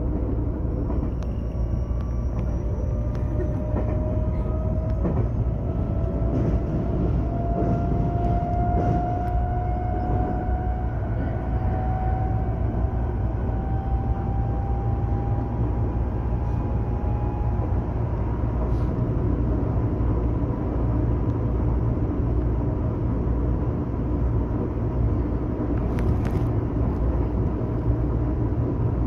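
Electric train running, heard from inside the carriage: a steady low rumble of the wheels on the rails, with a faint motor whine that rises slowly in pitch over about fifteen seconds and then fades.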